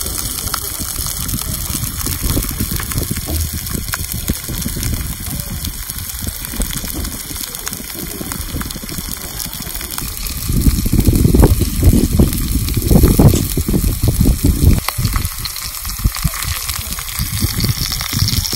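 Beef steaks sizzling on a fire-heated flat stone, a steady hiss. An uneven low rumble runs underneath and swells loudest from about ten seconds in to about fifteen.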